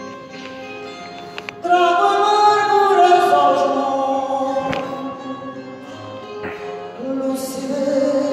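Live singing with plucked-string accompaniment: soft instrumental playing, then a voice comes in loudly with long held notes a little under two seconds in, and again about seven seconds in.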